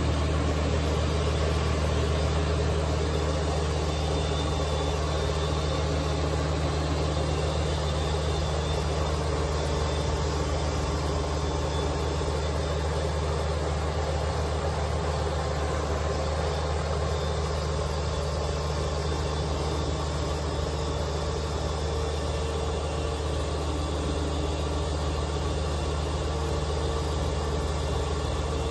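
Kubota BX2380 compact tractor's three-cylinder diesel engine running steadily under load, driving a front-mounted Kubota BX2816 snowblower as it throws snow from its chute.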